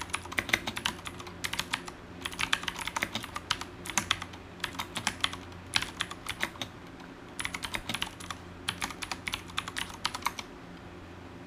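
Typing on a Ducky One TKL mechanical keyboard with Cherry MX Blue clicky switches: fast runs of crisp keystrokes in bursts of about a second, separated by short pauses, stopping about a second before the end. A faint steady low hum underneath.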